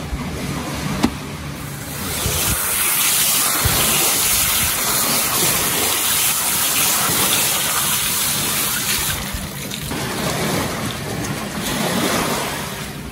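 Garden-hose spray nozzle showering water onto peeled prawns in a plastic colander, starting about two seconds in and stopping about nine seconds in, with small waves washing onto a gravel beach.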